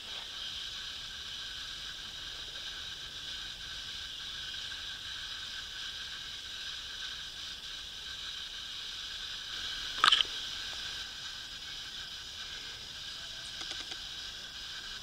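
Steady background hiss, with one short, sharp click about ten seconds in and a few faint ticks near the end.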